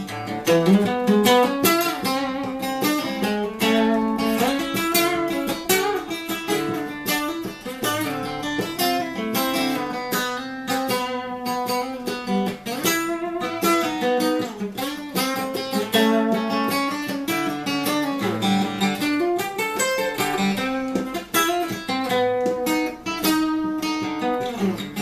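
Acoustic guitar playing an instrumental break, a busy run of picked notes over chords, with no singing.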